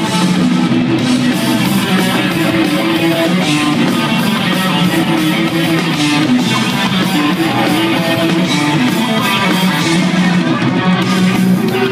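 Rock band playing live in an arena, with electric guitars, bass and drums in a dense instrumental stretch with no singing, recorded from the crowd.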